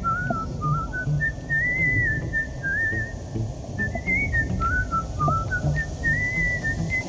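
Background music carried by a whistled melody of short gliding notes, over a steady low rushing noise.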